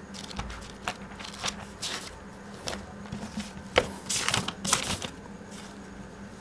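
Writing and handling noise while a problem is written out: scattered short scratches and taps, the loudest cluster a little past the middle, over a steady low hum.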